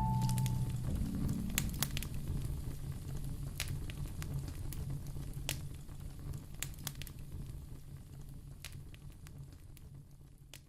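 Wood fire in a fireplace crackling, with sharp pops scattered through over a low steady rumble, fading out gradually.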